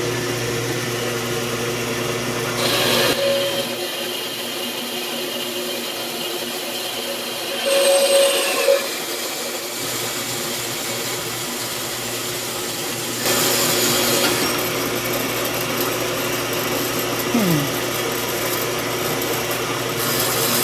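A 4x6 horizontal metal-cutting band saw runs steadily on fresh 90-weight gearbox oil while its blade cuts through metal stock, giving a constant motor and gearbox hum. The running sounds good and a little quieter. Louder, scratchier passages come three times: about three seconds in, near eight seconds, and again around thirteen to fourteen seconds.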